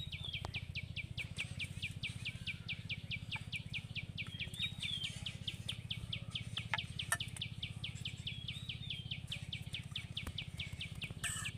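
An insect chirps in a fast, even pulse of about seven or eight high chirps a second, with a few bird chirps and a low steady hum underneath. A few soft knocks come from the wooden rolling pin on the board.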